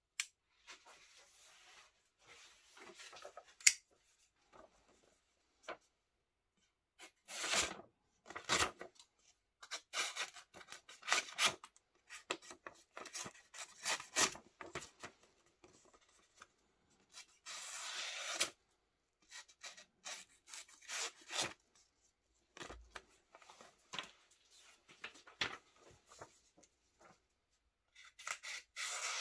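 WESN Allman titanium frame-lock folding knife's S35VN blade slicing through sheets of paper in a string of short rasping cuts with pauses between them. A single sharp click about four seconds in is the loudest sound.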